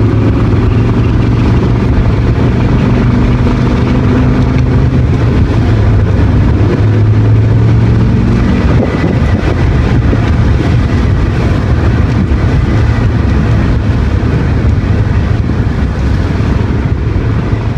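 BMW E60 M5's S85 V10 engine running with all four VANOS solenoids newly replaced but not bled. It gives a steady low buzzing hum for the first half, which turns rougher and less even about halfway through; the owner finds it doesn't sound good.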